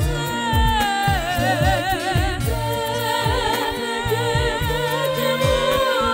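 Sesotho gospel song: several voices singing with wide vibrato over a steady drum beat and backing music.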